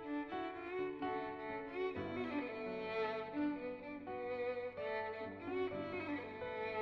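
Background music led by bowed strings, violin over cello, playing a slow melody.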